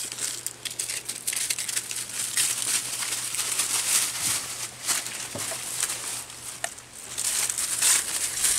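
Dry fallen leaves crunching and rustling in a dense, irregular crackle as dogs' paws and footsteps move through the leaf litter.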